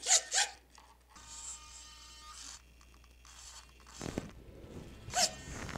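Powered-up micro servo in a glider wing's flaperon bay, its motor and gears whirring in a few short zipper-like bursts as it drives the flaperon through its travel, with a faint steady whine from the servo in the middle and another burst near the end.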